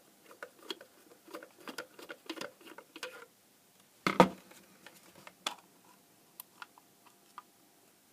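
Light clicking and ticking of a screwdriver backing a small screw out of a plastic instrument case. About four seconds in comes one louder knock as the screwdriver is set down on the table, followed by a few sharp plastic clicks as the case halves are eased apart.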